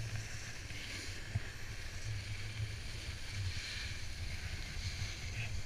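Snowboard sliding over packed snow, making a steady scraping hiss, with wind rumbling on the microphone.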